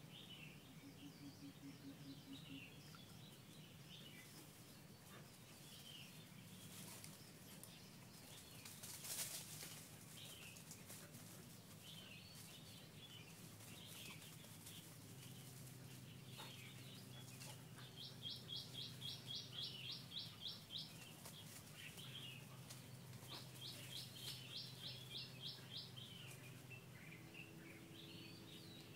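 Faint outdoor birdsong with scattered chirps. Twice, a bird gives a quick run of about a dozen even, high-pitched notes, roughly four a second, each run lasting two to three seconds.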